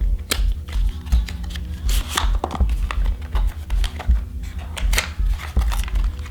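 Quick clicks and taps of hard plastic drone accessories and their packaging being handled, over background music with a pulsing low beat.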